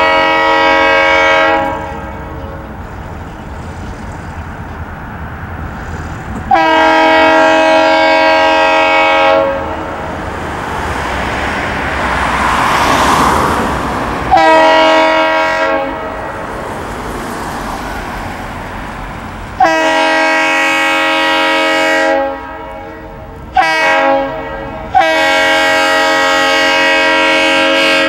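Norfolk Southern locomotive's multi-chime air horn blowing for a grade crossing: a run of long blasts with a couple of short ones between them. Between blasts, the rumble of the approaching train swells.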